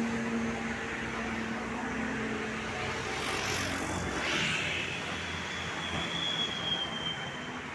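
Roadside traffic: vehicles passing close by, their engine and tyre noise swelling and fading, with one loud pass about four seconds in.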